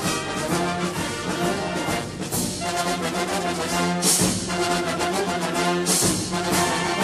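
Orchestral background music led by brass, with strong accents about every two seconds.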